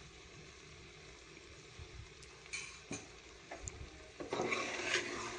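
Steel spoon stirring chicken and spice mix in a pressure cooker pot. It is faint for the first couple of seconds, then a few short clinks, and from about four seconds in steady stirring and scraping against the pot.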